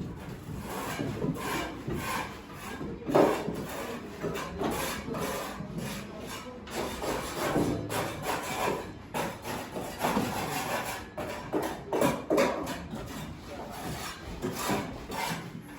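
Irregular scraping and rubbing strokes of building work, with a louder scrape about three seconds in.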